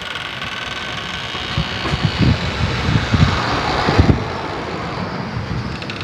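Storm wind blowing hard in irregular gusts, with a steady rushing hiss and low rumbling buffets on the microphone, the strongest about two and four seconds in.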